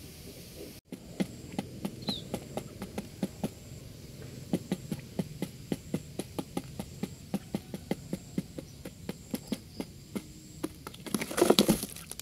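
Quail pecking grain off a cardboard floor: a long run of sharp taps, a few a second. Near the end comes a louder scuffling burst.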